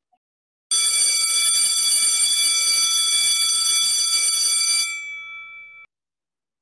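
Electric school bell ringing for about four seconds, its clapper striking the gong rapidly. When the striking stops, the gong rings on for about a second and then cuts off suddenly.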